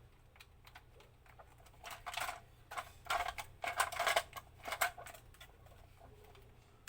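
Bursts of rapid plastic clicking and rattling from about two to five seconds in, from a dog game toy being switched on and off and handled. The toy is not starting.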